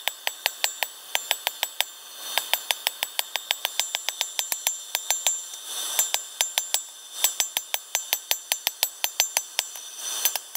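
Hand hammer striking red-hot leaf-spring steel on an anvil, forging a chisel: quick runs of ringing blows, about four a second, with short pauses between the runs.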